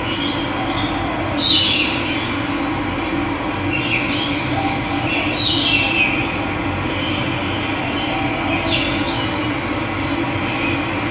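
Steady rush of running water with wild birds calling over it: about four short calls that fall in pitch, the two loudest near one and a half and five and a half seconds in.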